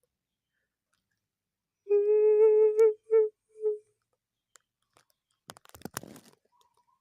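A strange, slightly wavering hum, about a second long, then two short repeats of it: a weird sound made to scare. A couple of seconds later comes a short burst of rustling and crunching.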